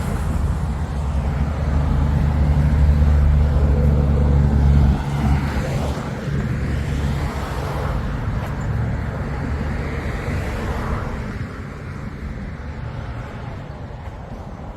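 Road traffic: a motor vehicle's low engine rumble, loudest for the first five seconds, drops off suddenly, and a lower steady traffic hum follows.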